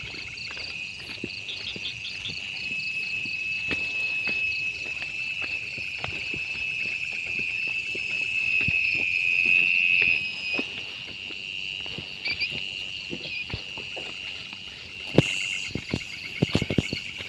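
Night insects calling: a steady high trill with rapid pulsing chirps above it, swelling a little in the middle. Scattered short clicks and knocks sound through it, with a louder knock and a cluster of clicks near the end.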